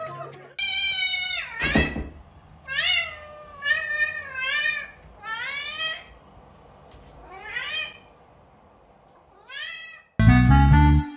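Domestic cat meowing over and over: about seven separate drawn-out meows, each bending up and down in pitch, with gaps between them. Loud music comes in near the end.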